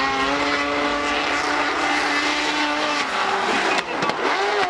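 Two drift cars running tandem through a corner, engines held at high revs at a nearly steady pitch for a few seconds, then rising and falling as the drivers work the throttle, over a haze of tyre noise.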